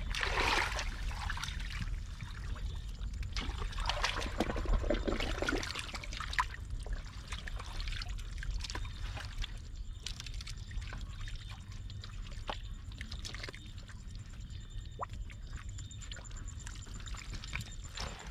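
Water pouring and splashing, with many small clicks and splashes that are busiest in the first few seconds, over a steady low rumble.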